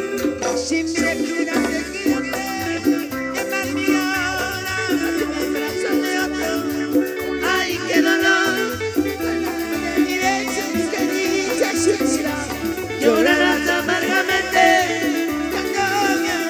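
Live cumbia band playing an instrumental passage: a melodic lead line over a steady bass pulse and percussion.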